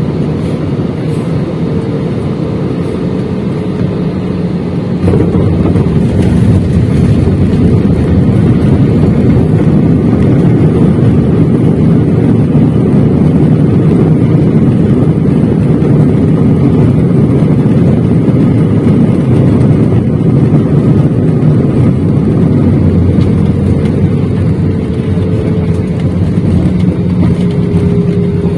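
Airbus A320 landing, heard from a window seat over the wing: steady engine and airflow noise, then about five seconds in a sudden, much louder roar and rumble as the jet touches down and rolls out on the runway, easing slightly near the end.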